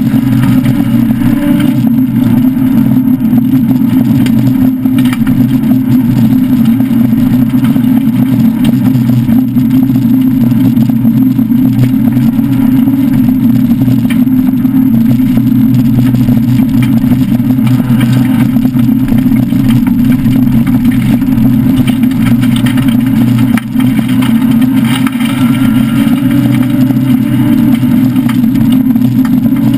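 Citroën SM Bandama rally car's Maserati V6 engine running hard at speed, heard from inside the cabin as a loud, steady drone with road noise from the dirt track. Its level dips once, briefly, about two-thirds of the way through.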